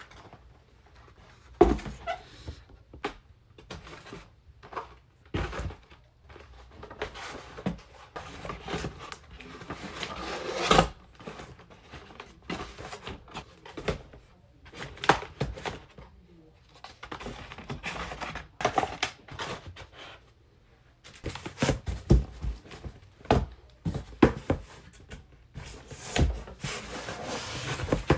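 Toy packaging being handled in a small room: irregular knocks, taps and rustles, with a few short quiet gaps.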